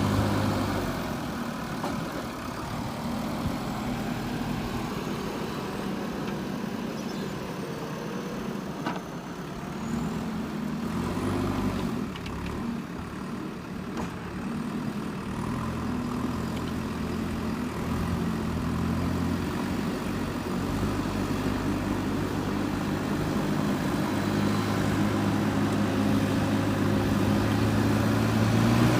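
JCB 3DX backhoe loader's diesel engine running under working load, its note stepping up and down as the machine works, easing off about two seconds in and building again toward the end.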